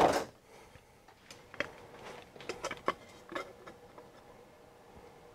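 Workbench handling sounds: a knock at the start, then scattered light clicks and taps as an aluminium plate and a pair of digital calipers are handled to measure a freshly drilled hole. It goes quiet for the last second or so.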